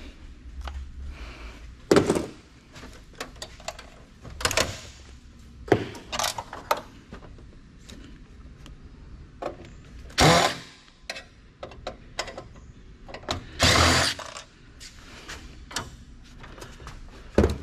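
Hand dismantling of an old computer for scrap: a series of knocks, clanks and rattles as metal and plastic parts are handled and dropped into scrap bins, with two louder, longer clatters in the second half.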